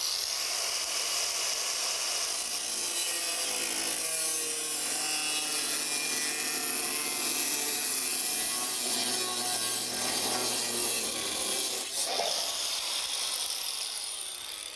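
Angle grinder with a cutoff wheel coming up to speed and cutting through a pre-primed 12-gauge steel plate, a steady high-pitched grinding hiss. About twelve seconds in there is a sharp click as the cut finishes, and the grinder winds down.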